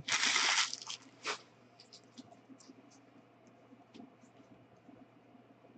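A trading-card pack wrapper being torn and crinkled for about the first second, then faint clicks and scratches of cards being handled and slid.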